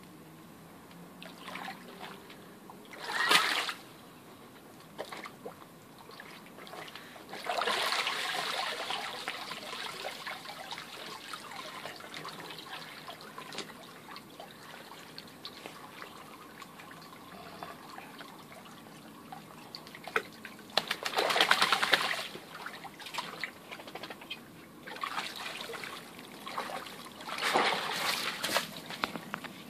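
A dog moving about in a shallow inflatable paddling pool: water splashing and sloshing in a few loud bursts, with trickling and dripping in between, and another burst of splashing near the end as the dog steps out of the pool.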